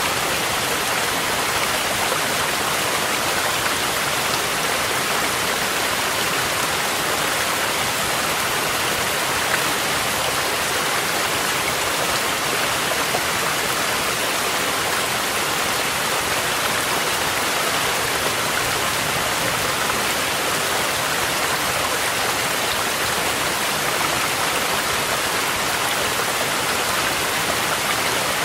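A mountain stream rushing, mixed with falling rain: a steady, even wash of water noise.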